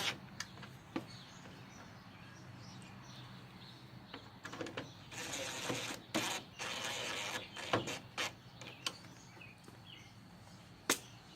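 Cordless drill-driver running headlight mounting screws in three short runs, with scattered clicks and knocks of parts and tools being handled.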